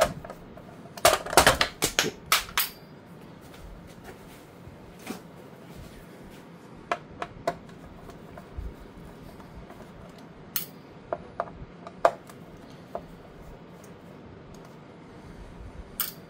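Hand-tool work on a plastic appliance housing: screws being undone with a hand screwdriver and a plastic cover plate handled, giving sharp small clicks and metallic clinks. There is a quick cluster of loud clinks about a second in, then single clicks every second or two.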